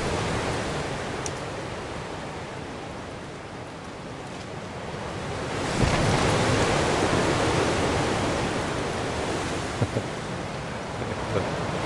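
Strong gusty wind buffeting a tent, easing off and then surging into a heavy gust about six seconds in, with a couple of short knocks near the end.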